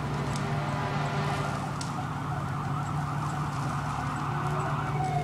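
Emergency vehicle siren sounding at a fire scene, with a rapid warble, over a steady low hum. Near the end a wail begins, falling in pitch.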